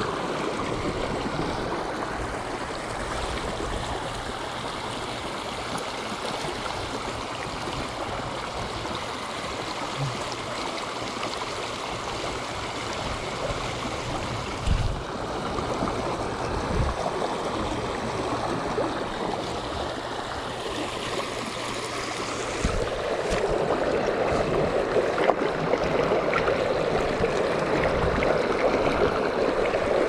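Creek water running over a shallow, rocky riffle: a steady rushing, with a few low knocks of handling partway through. It grows louder and fuller about three-quarters of the way in.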